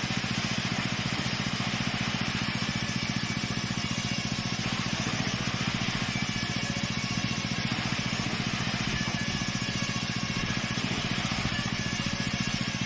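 Plywood-cutting saw machine running steadily, a continuous motor hum under loud hissing saw noise.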